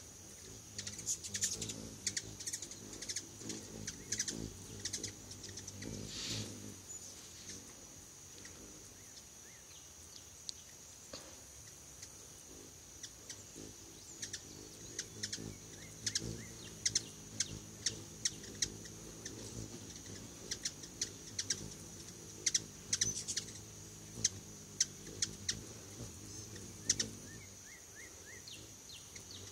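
Hummingbirds giving quick, high chip calls around a feeder, in scattered clusters that are busiest near the start and through the second half, over a steady high-pitched background tone.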